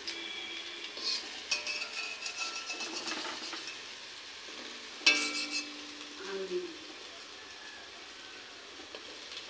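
Lentil fritters sizzling steadily in hot oil in a steel kadai, with a metal spatula scraping and clinking against the pan as the fritters are turned. The sharpest knock comes about five seconds in.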